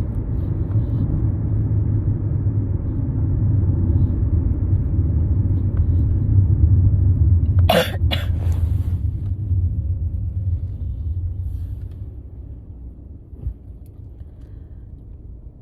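A woman sneezes twice in quick succession about eight seconds in, hard cold sneezes, over the steady low rumble of car road noise heard from inside the cabin. The rumble gets quieter near the end.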